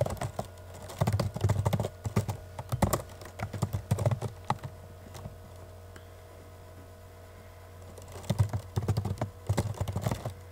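Typing on a computer keyboard: quick runs of key clicks, broken by a pause of about three seconds in the middle, over a steady low hum.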